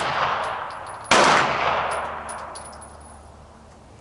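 A single gunshot about a second in, with a long ringing decay that fades over the following seconds; the tail of the previous shot is dying away at the start.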